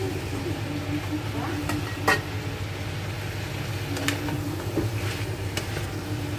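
Diced potatoes and vegetables sizzling in a metal wok while they are stirred, with several sharp knocks of the wooden spatula and added pieces against the pan.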